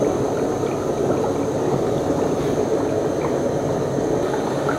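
Ghee made from cream bubbling and crackling steadily in an aluminium pot, the hot fat frothing as the last milk residue, now granular, cooks down and the ghee nears done.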